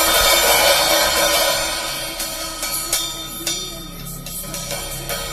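14-inch Nebulae crash cymbal struck and ringing out, its bright wash loudest at first and fading over a few seconds, with a few lighter stick hits about two to three seconds in.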